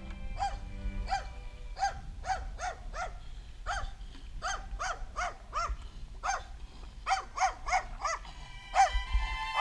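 A dog barking over and over in short, high yaps, about two a second, some in quick pairs.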